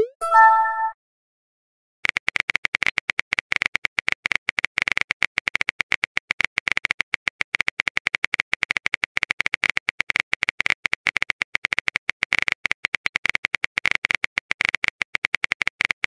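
Chat-app keyboard typing sound effect: rapid, uneven clicks starting about two seconds in and running on steadily. Just before them comes a message alert, a short rising swoop and a brief chime.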